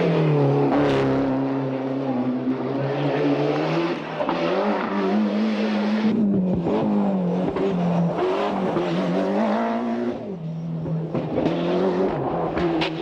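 Mitsubishi Lancer Evolution 6.5 Tommi Makinen edition's turbocharged 4G63 inline-four engine being driven, its pitch rising and falling repeatedly as it revs up and comes off throttle.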